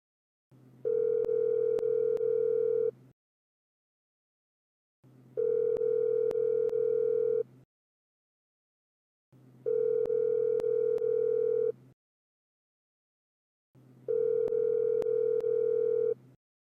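Telephone line tone sounding four times, each a steady two-second tone repeating about every four and a half seconds with silence between. Each tone starts with a faint hum and carries a few light clicks.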